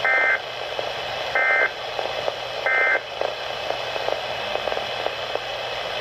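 Three short bursts of warbling SAME digital data tones, each about a third of a second and spaced about 1.3 s apart, from a Midland weather radio's speaker: the end-of-message code of an emergency alert broadcast. Steady radio hiss runs underneath.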